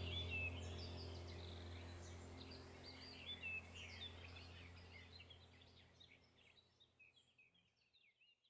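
Forest birds chirping and twittering in many short, quick calls over a steady low hum, all fading out gradually to silence by the end.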